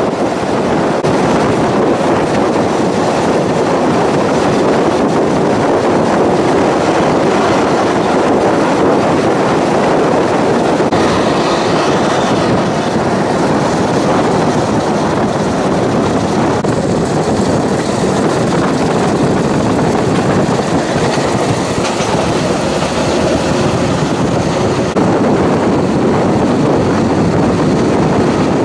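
Ferrovie Appulo Lucane narrow-gauge diesel railcar running steadily along the 950 mm line, a continuous even noise of wheels on rail and engine.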